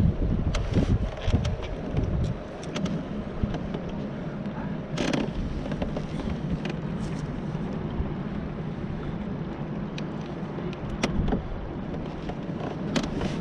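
Wind and water ambience on a fishing kayak: wind buffeting the microphone, heaviest in the first two seconds, over a steady low hum, with scattered small knocks and clicks, one louder about five seconds in.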